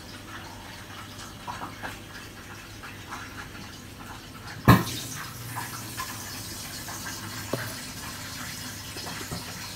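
Water running steadily, with scattered light clicks and one sharp knock a little under halfway through.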